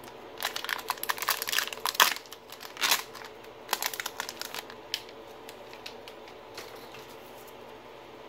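Plastic wrapper of a Topps Update baseball card pack crinkling as it is torn open and pulled off the cards. The crinkling comes in quick bunches, loudest around two and three seconds in, then thins to a few scattered rustles.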